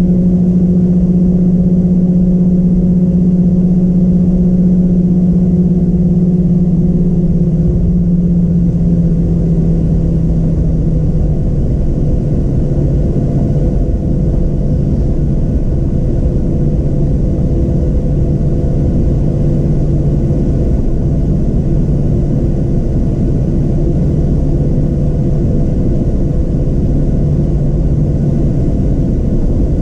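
Boeing 737-700's CFM56-7B jet engines running at taxi power, heard inside the cabin as a steady rumble with a low hum. The hum drops slightly in pitch about ten seconds in.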